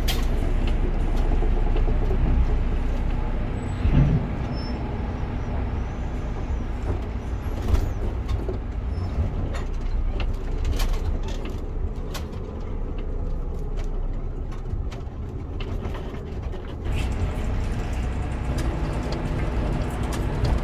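Class A motorhome's engine running with a steady low rumble, heard from inside the cab as it pulls away, with a few knocks and rattles over it.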